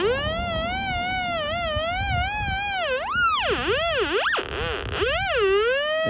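Dunham & Morrow DML2000 magnetic locator sounding its electronic tone, which wavers gently at first and then, from about halfway, swoops deeply down and back up in pitch several times. The changing pitch signals a magnetic disturbance under the probe, which may be buried metal or just iron-bearing rock.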